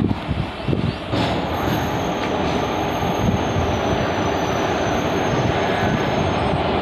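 Electric-locomotive-hauled express train running past along the platform line, a steady heavy rumble of wheels on rails. From about a second in, thin high wheel squeals ride over the rumble. Wind buffets the microphone at the start.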